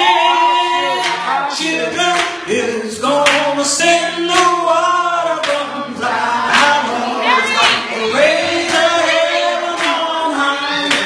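Live gospel singing: an elderly woman sings into a microphone with a small group of voices, on long, sliding held notes. Sharp percussive beats keep time about twice a second.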